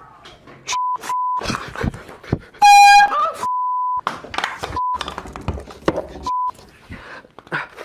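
Censor bleeps: a steady 1 kHz beep cutting in again and again over chopped fragments of a man's speech. A louder buzzing tone sounds for about half a second near the middle.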